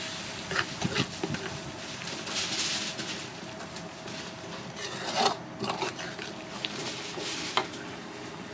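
Kitchen clatter: metal utensils and dishes clinking and knocking, several sharp knocks among them, over a steady hiss typical of food frying in oil.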